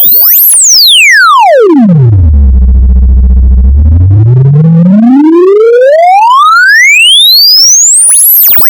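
Loud electronic sine-tone sweep used to vibrate water and dust out of a speaker. It falls from a very high whistle to a deep low hum in about two seconds, stays low for a moment, then climbs steadily back up to a high whistle.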